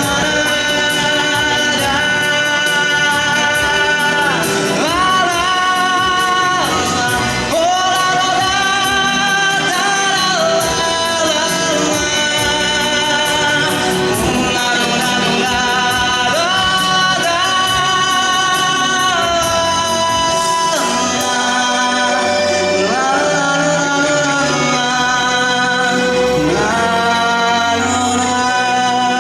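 A teenage male singer singing a pop song over musical accompaniment, holding long notes with vibrato.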